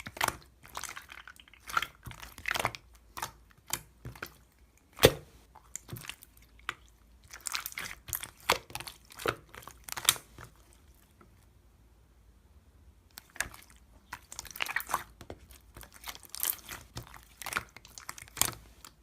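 Pearl slime, slime packed with small plastic pearl beads, being squeezed and pressed by hand, giving irregular crackling, popping clicks. The clicks stop for about two seconds in the middle, then resume.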